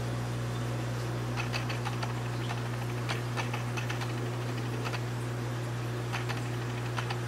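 Steady low hum of running aquarium pumps, with irregular light clicks and ticks scattered over it.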